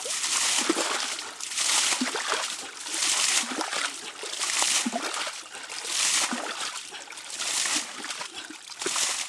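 Muddy water bailed by hand with a pot out of a dug spring pit and thrown aside, splashing in a steady rhythm: about seven scoops, one every second and a half. The pit is being cleared of silt so the buried spring water can rise again.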